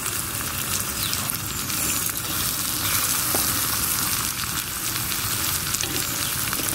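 Chopped brinjal and drumstick frying in hot oil in a small clay pot over a wood fire: a steady sizzling hiss.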